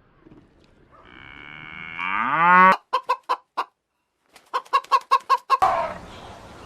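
A cow moos once, a long call rising in pitch that cuts off suddenly. A hen follows with two quick runs of clucks, about four and then about eight.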